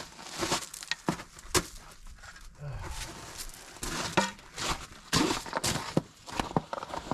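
Irregular metallic clinks and knocks as heavy lug nuts are handled and started onto the wheel studs of a motor grader wheel.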